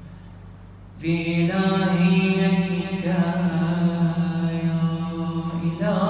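A man's solo voice chanting an Arabic Ramadan supplication (dua) in a melodic recitation style, with long held notes that slowly bend in pitch. The voice comes in about a second in, after a short pause for breath.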